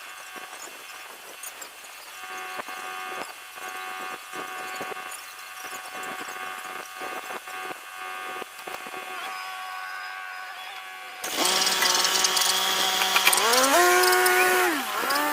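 Skid steer engine running steadily with scattered clicks and knocks. About eleven seconds in it abruptly turns much louder, revs up, holds, and drops back down near the end.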